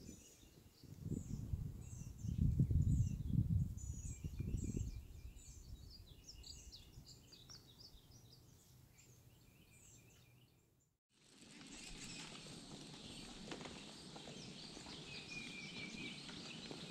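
Small birds chirping rapidly, with low rumbling in the first few seconds. After a cut about eleven seconds in, the chirps give way to a steady outdoor hiss with a few bird notes.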